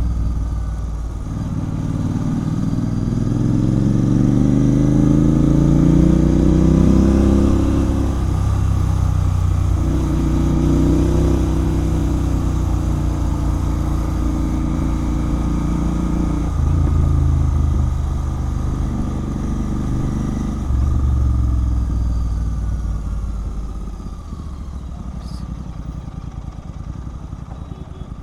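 Royal Enfield Continental GT 650 parallel-twin engine through a Red Rooster aftermarket exhaust, pulling hard through the gears. The pitch climbs in several pulls, each broken off by a shift. Near the end the engine eases off and the sound drops and quietens.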